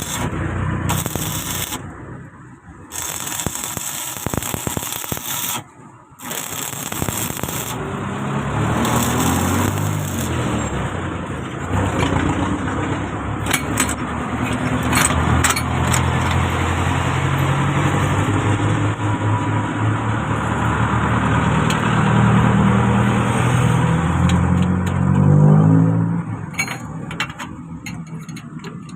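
A vehicle engine running, its pitch rising and falling, with a brief climb in revs near the end. In the first few seconds there is harsh scraping noise that cuts out twice.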